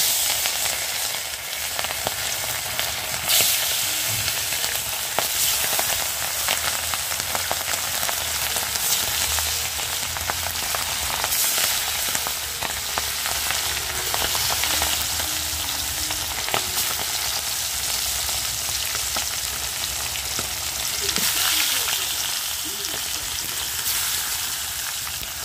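Pieces of fish frying in hot oil in a metal karai: a steady sizzle with dense crackling spatter, flaring loudest just as the pieces go into the oil near the start.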